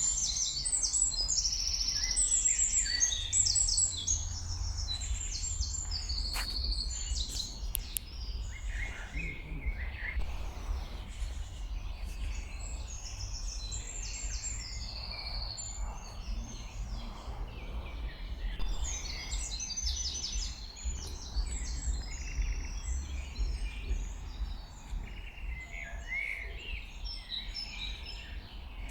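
Several songbirds singing in a spring forest: overlapping high trills and chirps throughout, busiest at the start and again in the second half, over a steady low rumble.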